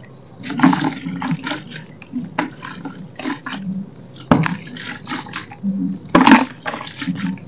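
Hands crushing a lump of roasted dirt into a basin of water: crumbly crunching and a patter of falling powder and crumbs on the water. There are louder sharp hits about four and six seconds in, the second a splash.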